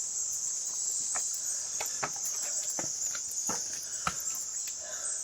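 Steady, high-pitched chorus of insects, with a few scattered faint clicks through it.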